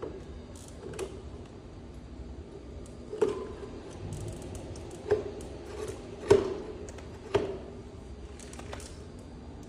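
Sharp clicks and knocks of small hard parts and tools being handled in a repair, five louder strikes spread irregularly among lighter ticks.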